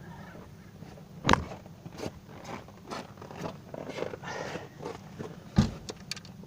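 Clicks, scrapes and rustling from hands working in a car's engine bay, with two sharp knocks, one about a second in and one near the end.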